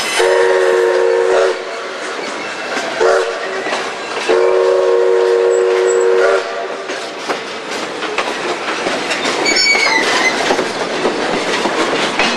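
Robert Dollar No. 3's steam whistle blows a chord of several pitches: a long blast, a short one, then a longer one, over the steady clickety-clack and rumble of the train rolling along. There is a brief high squeal about ten seconds in.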